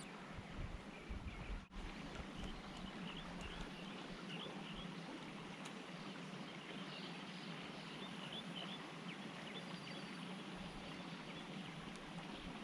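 Faint, steady outdoor background hiss with many short, high bird chirps over it.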